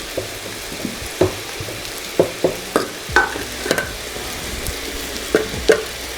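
Spoon stirring and working thick sadza (stiff maize-meal porridge) in a pot, with irregular knocks and scrapes against the pot, over a steady sizzle of food frying.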